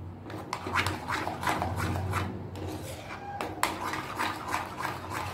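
Steel spoon scraping and clinking against a metal pan in a run of quick, irregular strokes while a thick flour-and-butter sauce is stirred.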